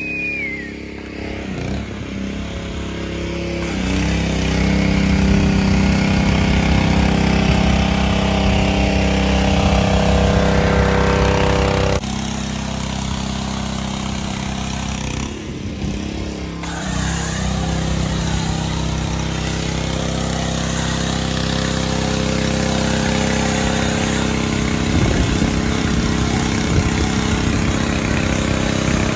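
A pressure washer's small engine running steadily, with the hiss of a foam cannon spraying. The engine note and the loudness change abruptly a few times.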